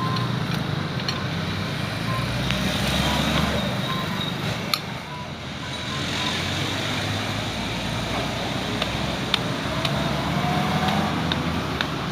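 Steady low hum of a motor vehicle engine running near by, with a faint rising whine about eight seconds in. Two sharp clicks, about five and nine seconds in, stand out over the hum.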